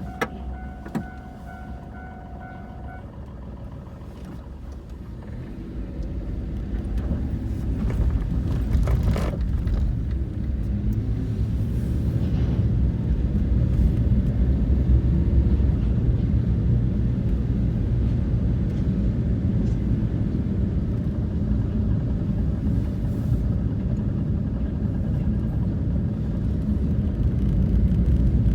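Level crossing warning bell ringing, which stops about 3 s in. Then a low vehicle engine rumble builds up over a few seconds and holds steady, with a few sharp clicks.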